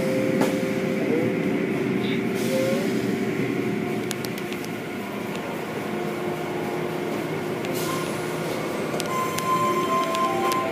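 Automatic car wash running: water spraying and spinning brushes scrubbing a foam-covered car, with steady machinery noise and faint motor whines, heard through the viewing window.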